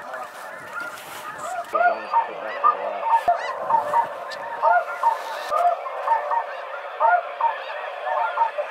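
A flock of snow geese calling overhead: many short, high honks overlapping in a busy chorus, building up about two seconds in.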